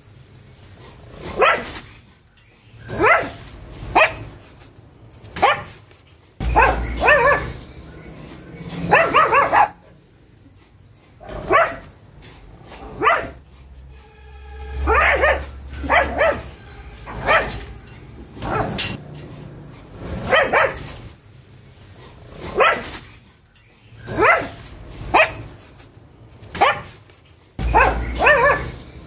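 Pug barking over and over, single barks one to two seconds apart.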